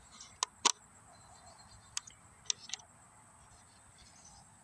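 About five sharp plastic clicks and taps as the black plastic control box of a game feeder is handled: two close together near the start, one in the middle, two more a little later.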